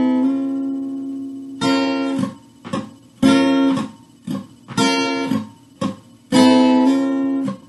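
Acoustic guitar with a capo, strummed slowly in a rhythm of full ringing chord strokes broken by short, dead muted hits where the strings are deadened and struck. The first chord rings out for over a second before the pattern continues.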